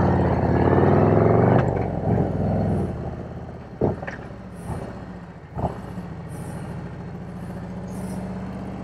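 Motorcycle engine pulling away, its pitch rising. About a second and a half in the throttle closes and the engine drops to a lower, steady note as the bike rolls slowly along. Two short knocks come partway through.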